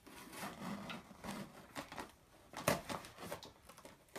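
Box cutter blade slitting packing tape along a cardboard box seam: uneven scraping and rustling of tape and cardboard, with a couple of sharper, louder strokes, one a little past halfway and one at the end.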